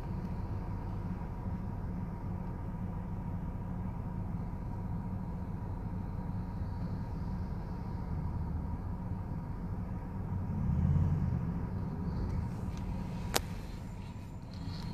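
Car cabin road noise while driving: a steady low engine and tyre rumble that swells briefly about ten seconds in, with a single sharp click near the end.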